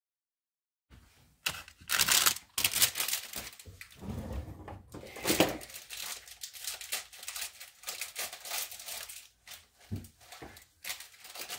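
Plastic cookie dough package being torn open and handled, with irregular crinkling and tearing sounds.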